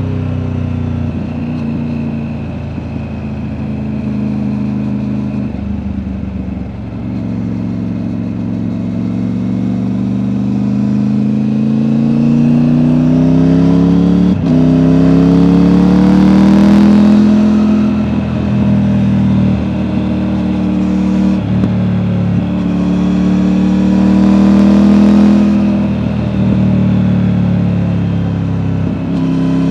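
Triumph Tiger 900's three-cylinder engine running through an Akrapovic exhaust, ridden under load: the revs climb steadily and then drop at each of several gear changes. The note is deep with a slight burble.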